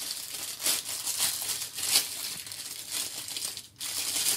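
Clear plastic bag crinkling in irregular bursts as gloved hands work a pair of protective glasses out of it, with a brief lull near the end.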